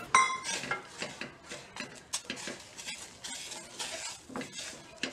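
Wooden spoon stirring and scraping thick rice flour dough in a stainless steel saucepan, knocking against the pan again and again as the flour is worked into the hot water. A sharp metallic clink with a brief ring comes just after the start.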